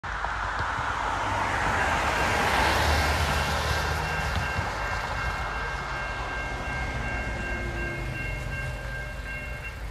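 Road traffic rushes past. About three to four seconds in, a railroad crossing warning bell starts ringing at an even pace, then stops near the end as the gates come down, a sign that a train is approaching.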